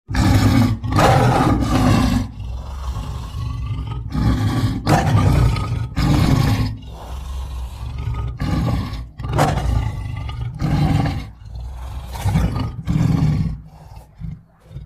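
Lion roaring: a roaring bout that starts suddenly with long, deep roars, then breaks into a series of shorter grunts that grow fainter and die away near the end.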